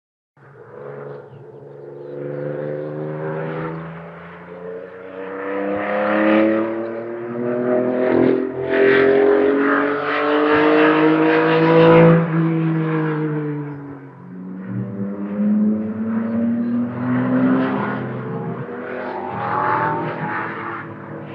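Several race car engines accelerating on a track, their notes overlapping and climbing in pitch as they pull away. The sound swells to its loudest about halfway through, dips, then builds again as another car accelerates near the end.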